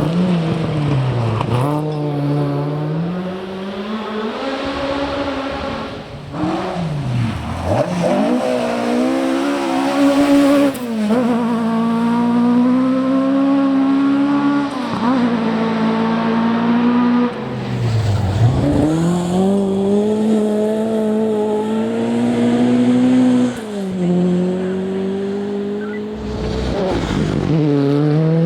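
Rally car engine driven hard through a stage, revving up and dropping sharply in pitch about six times as the driver lifts, brakes and changes gear for corners, then pulls away again.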